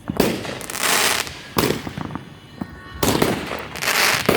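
Fireworks going off at close range: a run of sharp bangs, each followed by a long crackling hiss.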